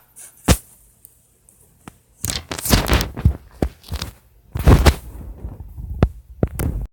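Irregular knocks, clicks and rustling, in two louder clusters around two and a half and four and a half seconds in, cutting off abruptly at the end.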